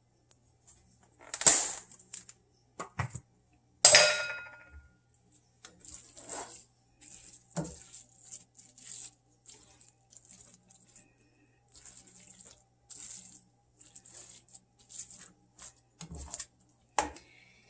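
A spatula stirring and scraping spaghetti squash mixture around a nonstick skillet: a run of soft, short scrapes. Near the start come two sharp knocks on the pan, the second ringing briefly.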